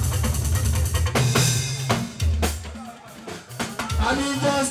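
Live band music with a drum kit, bass drum and percussion over a bass line. The music thins out briefly about three seconds in, and a singing voice comes in near the end.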